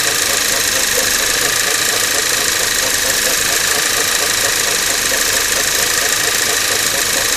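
Skoda Octavia 1.8 TSI turbocharged four-cylinder petrol engine running steadily on a cold engine, with an extraneous shuffling noise: a fault that appears a couple of minutes after a cold start, lasts a few minutes and quickens over time.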